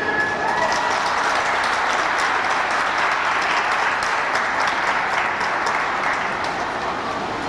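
Audience applauding at the end of a figure skating program, as the last notes of the skating music die away at the start. The clapping eases a little near the end.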